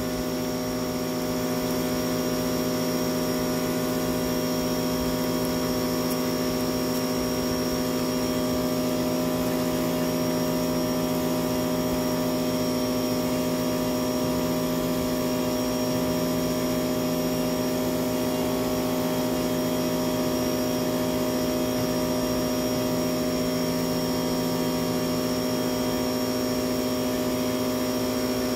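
Sun Joe SPX3000 electric pressure washer running with a steady hum as it drives water through a sewer jetter hose to clear a clogged kitchen drain line.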